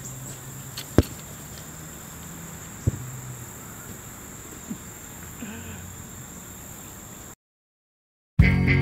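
A large ball kicked with a sharp thump about a second in, and a softer thud near three seconds, over a steady high insect drone. After a second of silence, rock music with guitar starts near the end.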